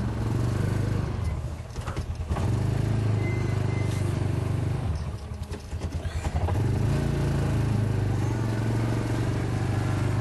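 A motor vehicle engine running steadily, its low note easing off and pulsing briefly twice: once about a second and a half in, and again about five to six seconds in.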